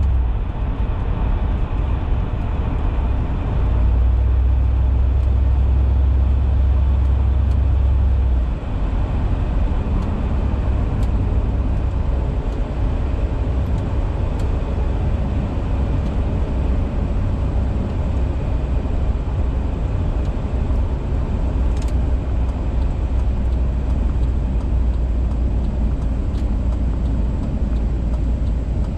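Low exhaust drone inside the cabin of a 2002 Cadillac DeVille's Northstar V8, with a Thrush welded performance exhaust and no resonator, while driving, over road noise. The drone swells about four seconds in, drops suddenly at about eight and a half seconds, then holds steady at a lower level.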